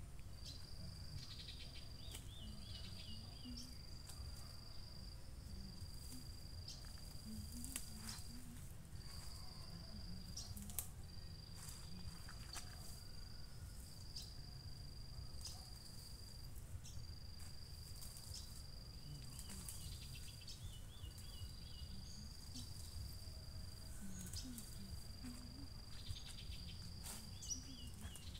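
An insect trilling steadily at one high pitch, in stretches of a few seconds broken by short gaps, over a low outdoor rumble. A few short bird chirps and light snaps and rustles of weeds being pulled by hand come through now and then.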